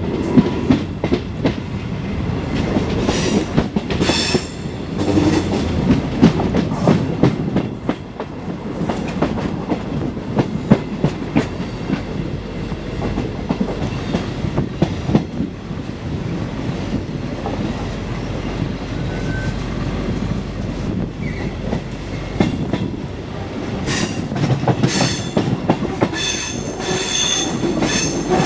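Regional train rolling through the station tracks, its wheels clattering over points and rail joints in a steady run of clicks over a low rumble. A high-pitched wheel squeal rises briefly a few seconds in and again near the end.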